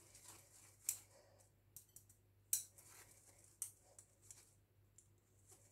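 Fingers rubbing ground roasted cashews through a fine wire-mesh sieve: faint, irregular scratchy strokes, roughly one a second.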